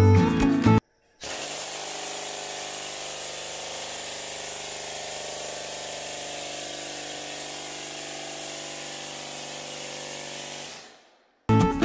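Castellari Olivance pneumatic olive shaker running on compressed air: a steady hiss of air with a steady low hum beneath as the red combs vibrate, dying away near the end.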